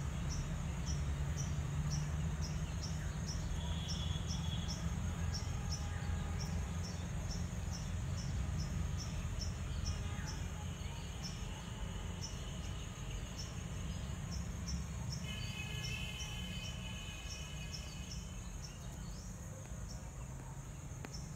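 Steady low rumble of background noise with a fast, regular high-pitched chirping about three times a second, and a few faint distant tones.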